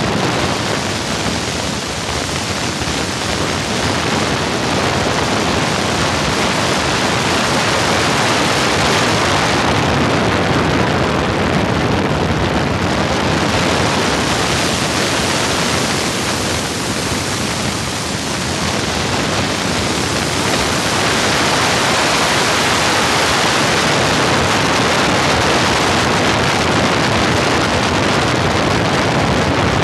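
Steady loud rush of wind and engine noise from an open-cockpit biplane in flight, picked up by a microphone mounted outside on the wing. The hiss thins a little in the highs about a third of the way in and again just past halfway, then gets slightly louder for the last third.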